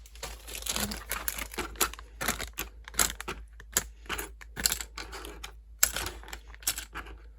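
Irregular clicking and rustling as small plastic parts and their packaging are handled and sorted.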